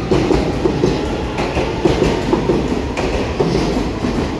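EMU3000 electric multiple unit moving along the platform as it pulls out: a low rumble with wheels clacking rapidly over the rail joints. It eases a little near the end as the last car passes.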